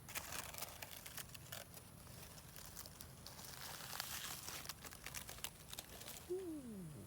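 Leaves being handled, crinkling and tearing in a quick run of small crackles. A short falling tone follows near the end.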